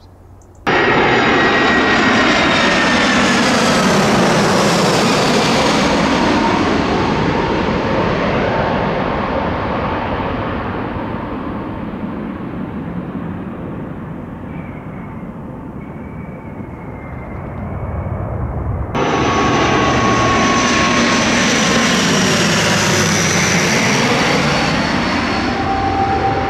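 Airliner engines passing close by: a loud rush of engine noise with high whining tones that fall in pitch as the aircraft goes past, easing off after about ten seconds. An abrupt cut about nineteen seconds in brings another loud close pass of an aircraft, its whine again falling in pitch.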